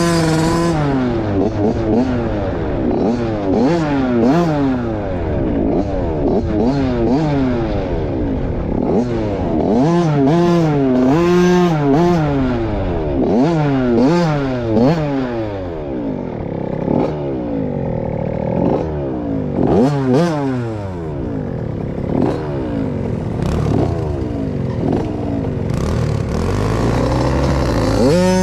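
Dirt bike engine revved up and down over and over while riding slowly, each blip of the throttle a quick rise and fall in pitch. Near the end it holds a steady note.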